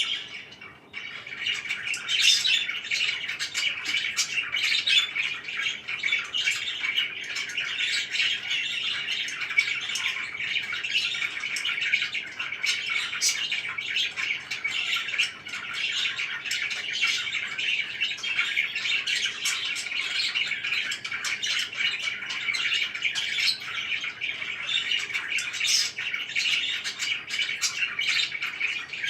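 A group of pet parakeets chirping and squawking over one another in a dense, continuous chatter, with a brief lull about a second in.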